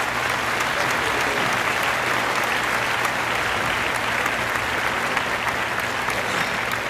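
Crowd applauding, a steady dense clapping throughout.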